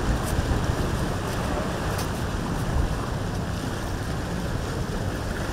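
Wind on the microphone over the steady wash of surf, with no clear engine tone.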